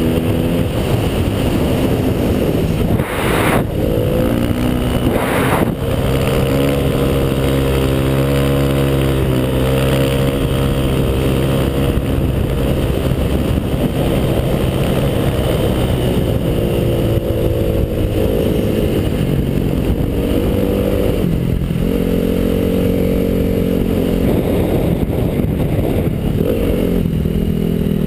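Snowmobile engine running at speed, its pitch rising and falling with the throttle, with two short scraping noises a few seconds in.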